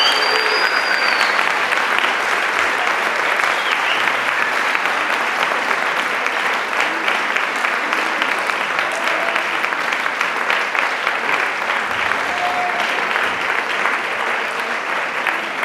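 Audience applauding steadily, the dense clapping easing slightly toward the end, with a high whistle in the first second.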